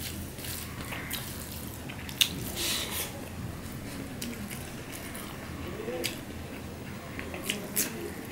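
Wet squishing and small clicks of rice being squeezed and mixed by hand on a stainless steel plate, with one sharper click about two seconds in and a few more ticks near the end.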